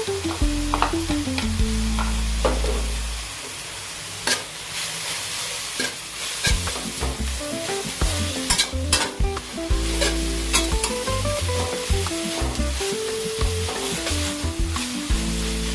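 Cassava leaves sizzling as they are stir-fried in a pan, with a spatula clicking and scraping against the pan many times. Background music with a stepping melody and bass plays under it.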